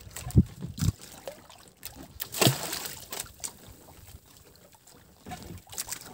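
Water sloshing against the hull of a small fishing boat at sea, with scattered knocks and thumps on board and a brief louder rush of noise about two and a half seconds in.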